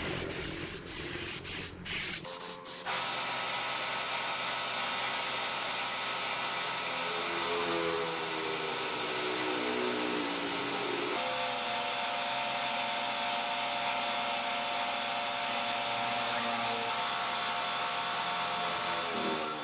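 Compressed-air spray gun hissing steadily as it sprays a darkening stain onto the wooden chair, settling into a continuous hiss about three seconds in. A steady whine of several tones runs beneath the hiss.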